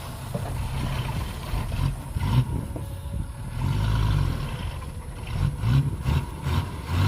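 Heavy diesel engine of earthmoving machinery running with a low rumble, its revs swelling and easing several times.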